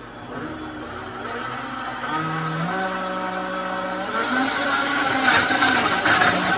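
Countertop blender running on a green smoothie of fruit, greens and water. The motor whine climbs in pitch in steps as it speeds up, then about four seconds in it turns louder and rougher as the contents are puréed.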